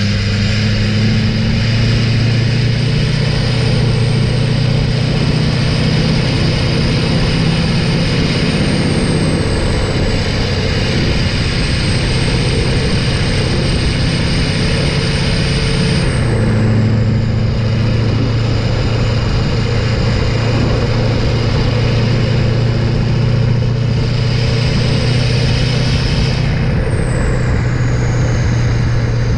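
LLY Duramax 6.6 L V8 turbodiesel under way, heard at its exhaust tip: a steady diesel drone with a high turbo whistle over it that falls away twice, a little past halfway and again near the end, as the throttle eases.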